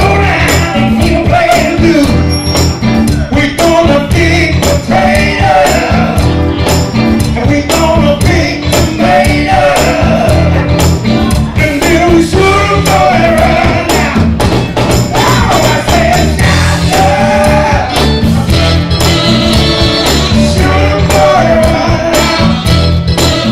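Loud, upbeat soul music with a steady beat and a wavering melody line over it.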